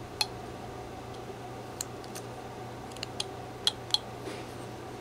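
Small carving knife cutting into a small wooden carving: a string of sharp, quick clicks as thin chips snap off, about seven over a few seconds, over a steady low hum.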